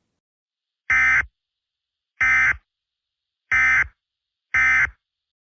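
Four short electronic data-tone bursts, each about a third of a second long and about a second apart, like the end-of-message (SAME) bursts that close an Emergency Alert System broadcast.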